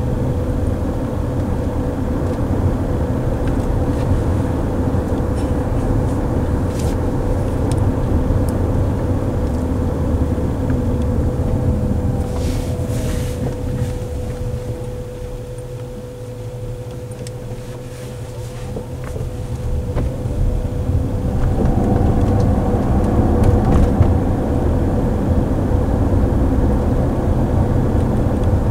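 Road and tyre noise inside a moving Waymo self-driving minivan, with a steady whine under it. The noise eases off about halfway through as the car slows, then builds again as it speeds up.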